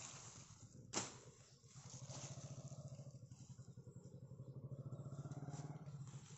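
A single machete chop into weeds about a second in. Then a vehicle engine passes on the road for several seconds: a low, steady pulsing hum that swells near the end.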